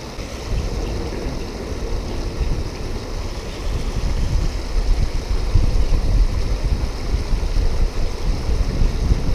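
Wind buffeting the microphone in uneven gusts over the steady rush of river water spilling across a low weir.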